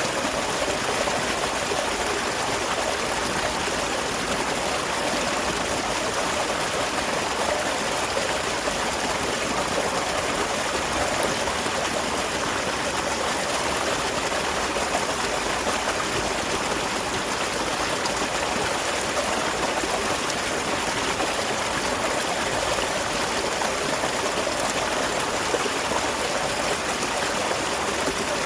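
Small waterfall splashing and rushing steadily.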